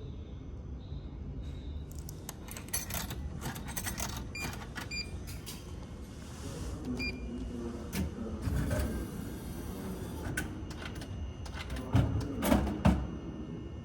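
Clicks and clinks of a vending machine being used, with a few short electronic beeps and some heavier clunks near the end, over a steady low rumble.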